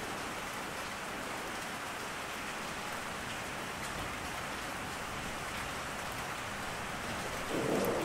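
Steady rain falling, with a roll of thunder swelling up near the end.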